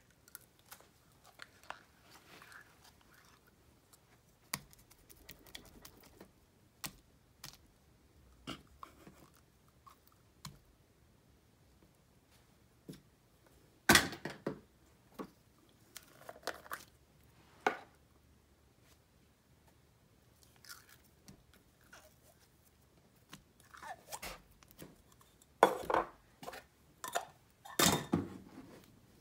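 Slime being scooped from plastic tubs and dropped into a glass bowl of mixed slime, some of it bead-filled: scattered sticky clicks and pops, loudest about halfway through and again near the end.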